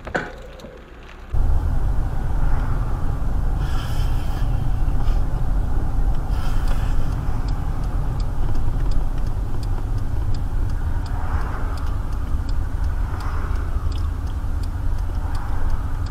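Car cabin rumble of a vehicle driving on the road: steady low engine and tyre noise that starts suddenly about a second in, with a light ticking over it.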